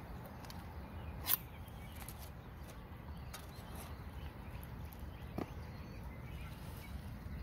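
Canned sweet corn and its liquid tipped from a tin into a plastic bowl of carp bait dough, over a steady low outdoor rumble. A sharp click comes about a second in and a softer knock a little past five seconds.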